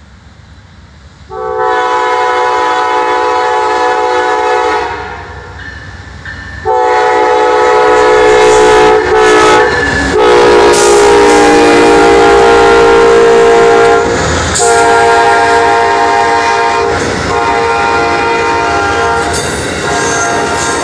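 Amtrak Silver Meteor passenger train, led by two Amtrak diesel locomotives, sounding its multi-note horn in about five long blasts as it approaches and passes at speed, the first blast starting about a second in. Under the later blasts comes the rumble and clatter of the locomotives and cars on the rails.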